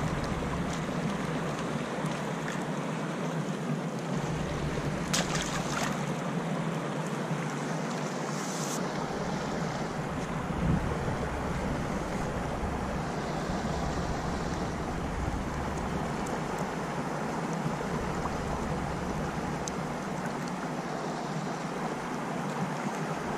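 Wind buffeting the microphone in gusts over a steady wash of river water against a stony bank, with a few brief clicks and a knock around the middle.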